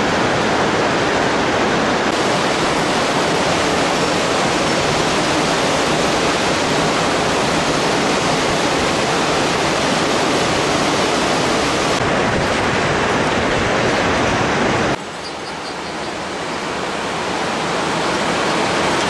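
Loud, steady rush of a whitewater river in a gorge. About three-quarters of the way through it drops suddenly to a lower level, then slowly grows louder again.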